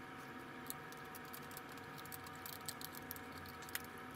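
Faint scattered clicks and light rattling of small metal parts and a T-handle driver being handled while a chainsaw muffler is fitted, the clicks coming more often in the second half.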